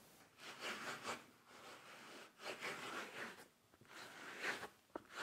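Rubbing or scraping strokes in four short bursts, each about a second long, with a light tick near the end.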